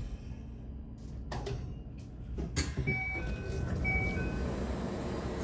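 Train's sliding doors opening at a station platform with a couple of knocks, followed by a short electronic chime that sounds twice over a steady hum.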